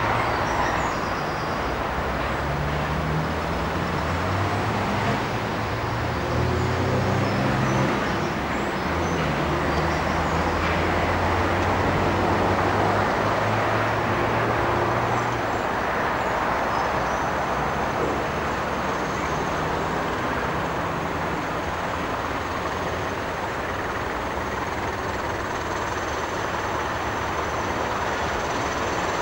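Class 20 diesel locomotives, with English Electric engines, running steadily as they haul a weedkiller train slowly toward the listener. A faint high whistle comes in during the second half.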